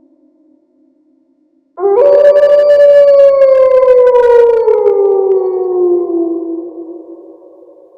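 A single long wolf howl that starts abruptly about two seconds in, rises slightly, then slides slowly down in pitch and fades away near the end.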